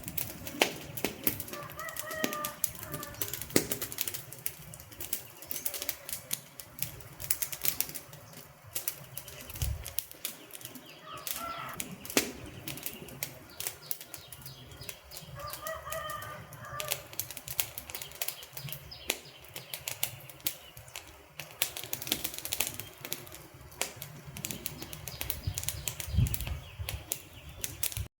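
Wood fire crackling, with frequent irregular sharp pops and snaps.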